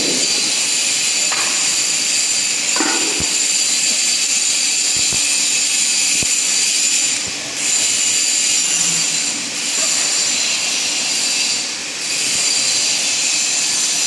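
A steady, high-pitched machinery whine with hiss, dipping briefly a few times in the second half. A couple of light metal knocks sound in the first three seconds as stainless steel mill parts are handled.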